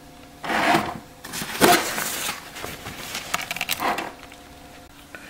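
Motorized touchless paper towel dispenser feeding out a sheet, its motor giving a faint steady whine under several short bursts of paper rustling.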